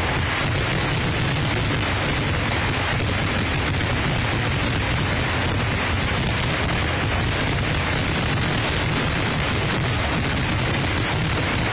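Fireworks barrage: explosions so rapid and close together that they merge into one continuous, loud din that overloads the recording.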